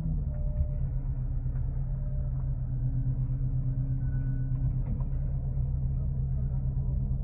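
Coach bus's diesel engine idling with a steady low rumble and hum, heard from inside the passenger cabin while the bus waits at a stop.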